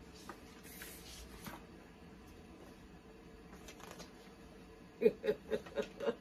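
Faint rustling of paper as the pages of an instruction booklet are handled and turned. About five seconds in, a woman makes a few short, louder vocal sounds.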